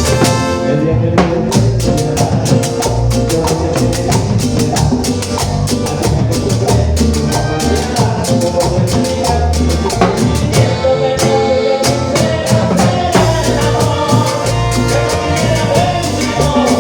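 Latin dance music in a salsa style, with drums and percussion keeping a steady, quick beat under sustained melodic instruments.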